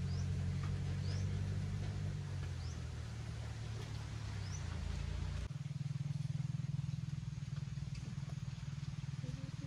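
A steady low motor drone, with a short rising chirp repeating about once a second in the first half. The sound changes abruptly about halfway through and the drone carries on.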